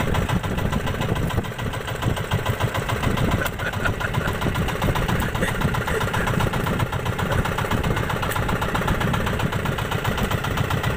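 Bangka's small engine running steadily with a fast, even chug.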